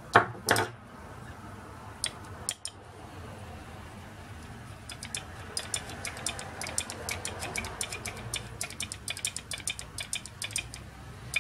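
A steel screwdriver shaft clicking against a small plastic magnetizer-demagnetizer block as it is stroked back and forth through the block's opening. There are two louder knocks right at the start and a few scattered clicks, then a quick run of light clicks, about five a second, through the second half.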